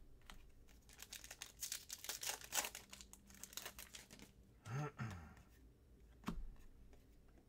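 Plastic wrapper of a trading-card pack being torn open and crinkled: a quick run of crackles over the first few seconds, then fewer, softer rustles.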